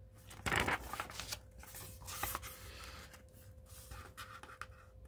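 A page of a Little Golden Book picture book being turned by hand. There is a loud paper swish about half a second in, followed by softer rustles and small taps of paper.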